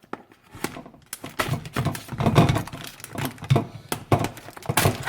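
Irregular clicks, knocks and crackles of a knife cutting into a plastic package of raw chicken hearts and the package being handled on the counter.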